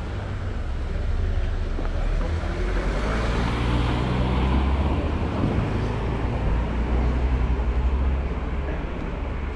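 A car passing close by at low speed: a low engine rumble with tyre noise, building after about a second and easing off near the end.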